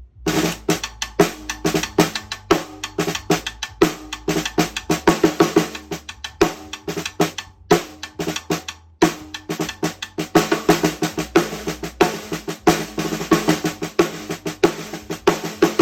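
Gretsch 14x5 USA Custom snare drum played in a fast run of strokes and rolls, each hit ringing briefly, with two short breaks about halfway through.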